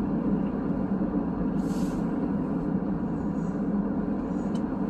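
Steady low road and engine noise inside a moving car's cabin, with a brief faint hiss about two seconds in.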